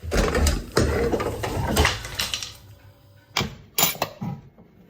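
Kitchen handling noises: irregular clattering and rustling, then a few sharp clicks about three and a half seconds in.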